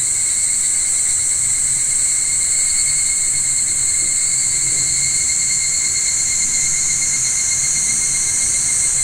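Loud, steady chorus of singing insects: a high-pitched, unbroken chirring.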